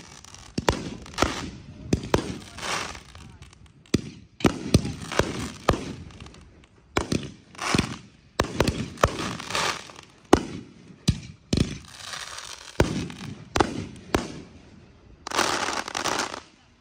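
Aerial fireworks going off in quick succession: a string of sharp bangs, a few each second, each followed by a crackling trail. Near the end comes a dense, loud stretch of crackling from glittering bursts.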